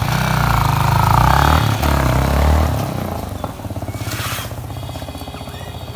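Yamaha MT-15's single-cylinder engine running through a newly fitted aftermarket silencer, louder for the first few seconds as if revved, then settling to a steady idle about three seconds in.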